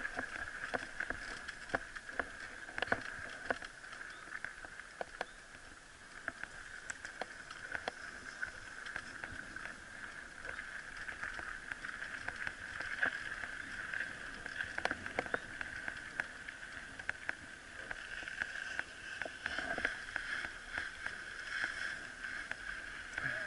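Mountain bike rolling over a dirt and gravel track, with frequent clicks and knocks from tyres on stones and the bike jolting, over a steady high-pitched buzz.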